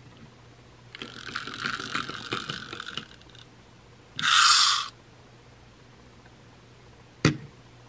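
Pull-back motor of a die-cast Ertl Thomas toy engine being wound: a rattling run of gear clicks for about two seconds as it is rolled back against the surface, then a loud short whir of the gears a second later. A single sharp knock near the end.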